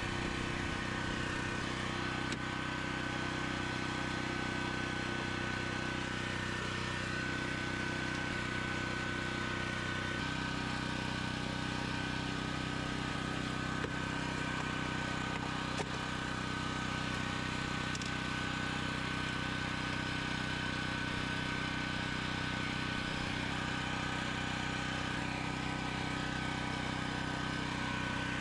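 An engine running steadily at a constant speed, with a steady high whine over its hum. Two light clicks come about halfway through.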